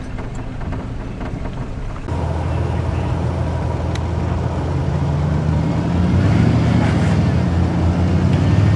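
Off-road vehicle's engine running steadily, heard from inside the cabin. About two seconds in it picks up under more throttle, with a low drone that grows louder toward the end.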